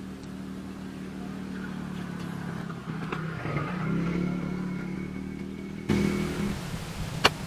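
A motor engine running with a steady low hum, rising in pitch and getting louder about three to four seconds in, then easing off. A single sharp click comes near the end.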